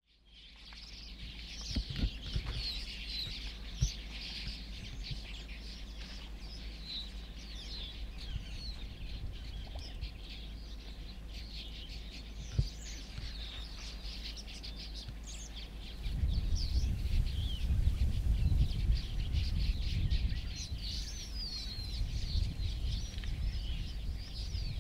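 Many small birds chirping and calling, with short high-pitched notes overlapping throughout. A low rumble comes in about two-thirds of the way through, and there are a few sharp clicks.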